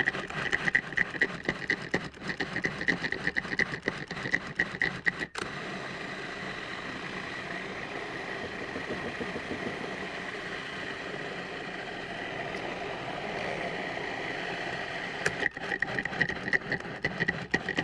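Food processor chopping a chunky veggie-burger mix of mushrooms and vegetables. Its motor runs with rapid, regular knocking as the pieces are thrown against the blade for the first five seconds, runs smoothly for about ten seconds, then the knocking comes back near the end.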